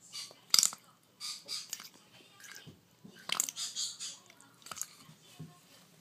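African grey parrot chick being hand-fed formula from a syringe: short, irregular wet gulping and raspy feeding noises, the sharpest about half a second in.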